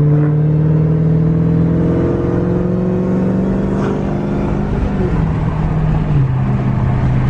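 Dodge Charger Hellcat's supercharged 6.2-litre V8 running under way, heard from inside the car. The engine note climbs slowly, jumps up in pitch about two seconds in, then drops in steps twice near the end.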